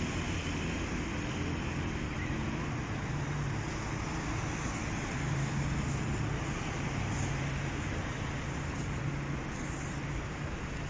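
Steady city road traffic: a continuous wash of passing cars with a low engine hum.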